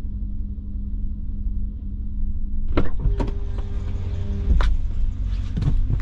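Clicks and knocks of an SUV's driver door being handled as a person climbs into the driver's seat, over a steady low rumble. A brief steady tone sounds in the middle.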